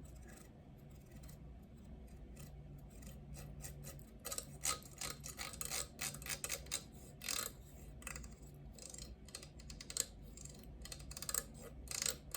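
Close-miked ASMR clicking from a small hard object being handled: faint, sparse clicks at first, then quick irregular flurries of crisp clicks from about four seconds in.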